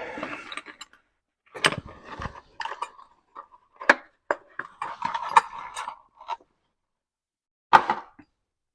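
Metal clinking and knocking as an exhaust clamp and its nuts are handled and fitted onto the exhaust pipe. The sound comes irregularly, with a few sharper knocks among lighter rattles.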